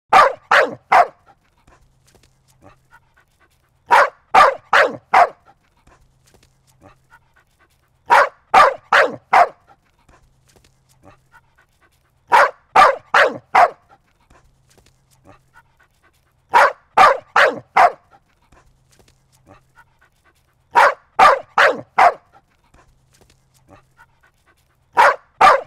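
A dog barking in short runs of about four barks, each run coming roughly every four seconds in an even, repeating pattern, with only faint small sounds between runs.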